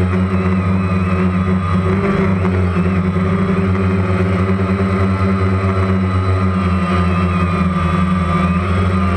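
Quadcopter drone's electric motors and propellers buzzing steadily, picked up by its onboard camera, with slight wavers in pitch as it manoeuvres.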